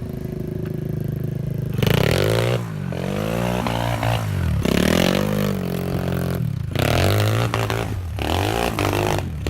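Engine revving up and down in several surges, starting about two seconds in, its pitch climbing and dropping with each blip of the throttle.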